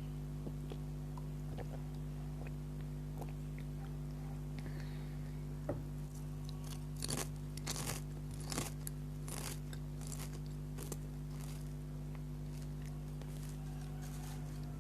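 Potato chips (Lay's) bitten and crunched close to the microphone, a burst of crisp crunches in the middle with scattered smaller crunches around it, over a steady electrical hum.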